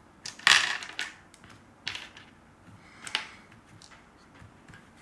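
Dice clattering and clicking: a loud cluster of clacks about half a second in, then a few scattered single clicks.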